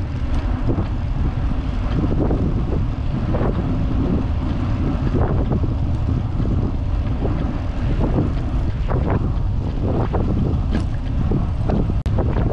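Wind buffeting the microphone of a handlebar-mounted GoPro on a moving vintage road bicycle, with frequent short knocks and rattles from the bike over the trail surface. The sound drops out for an instant near the end.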